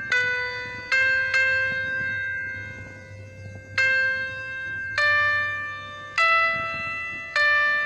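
Background music: a slow melody of bell-like notes, each struck sharply and fading away, about seven notes in all.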